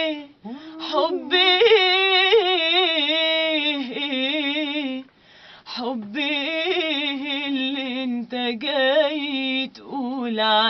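A woman singing an Arabic song, holding long, wavering, ornamented notes. She breaks off briefly about half a second in and again around five seconds in.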